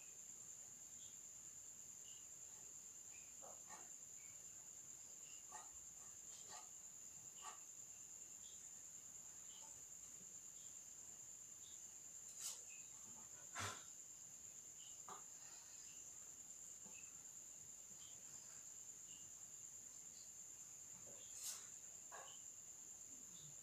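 Near silence: faint scratches of a pen sketching on paper over a steady high-pitched whine, with a few sharp clicks.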